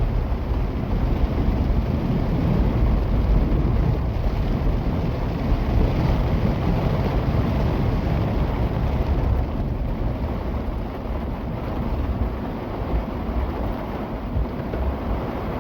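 A vehicle driving, heard from inside the cabin: a steady low rumble of engine and road noise with wind noise over it.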